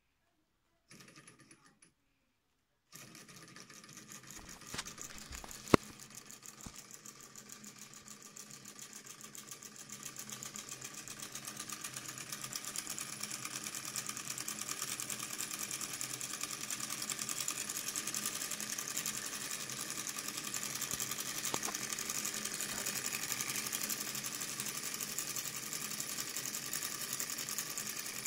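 Small Stirling engine driving a Wilesco M60 toy hacksaw by a string belt, making a fast, even mechanical clatter as the saw frame runs back and forth. It starts about three seconds in and grows louder and quicker over the next several seconds before running steadily, with one sharp click about six seconds in.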